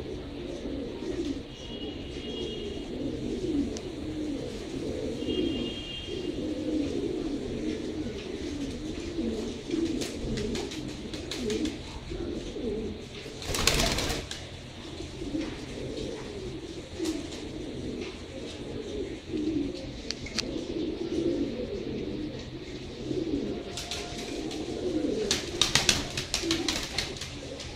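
A flock of pouter pigeons cooing continuously in low, overlapping warbles. About halfway through comes a loud burst of wing flapping as two pigeons scuffle, and near the end a few more quick wing claps.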